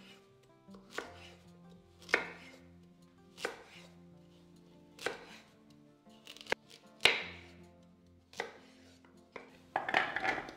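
Kitchen knife chopping through whole carrots onto a bamboo cutting board, one firm chop every second or so. Near the end, a quick clatter as the carrot chunks are dropped into a plastic food chopper bowl.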